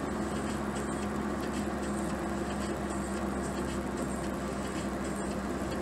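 Steady engine hum and road noise inside a moving car's cabin.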